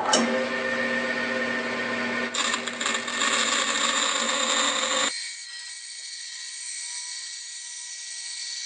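Band saw running and cutting through a Lexan polycarbonate sheet: a steady motor and blade sound with a hiss as the blade works through the plastic. About five seconds in it turns abruptly quieter and thinner.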